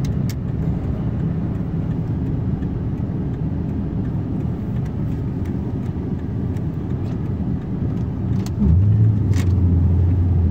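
Ford F350 pickup driving, a steady low drone of engine and road noise. About nine seconds in, a louder, steady low engine note comes in and holds.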